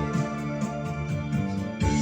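Instrumental introduction of a song: sustained electronic keyboard chords over a steady bass beat.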